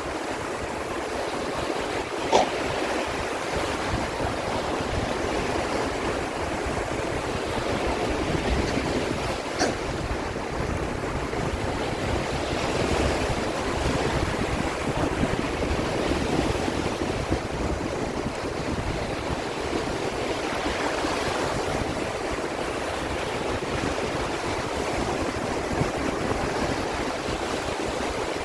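Sea surf: waves washing in, giving a steady rushing noise that swells and eases slowly. Two short sharp clicks cut through it, one about two seconds in and one near ten seconds, the first the loudest sound.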